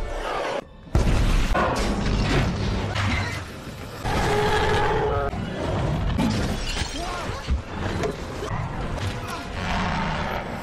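Monster-movie soundtrack of a Spinosaurus attack: crashing and shattering, and a long pitched roar about four seconds in, over music.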